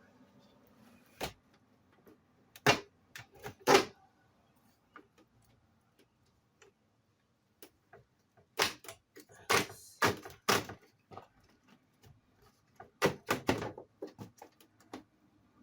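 Air conditioner parts being handled and fitted back together: irregular sharp knocks and clicks, with two loud knocks a few seconds in and further clusters near the middle and toward the end.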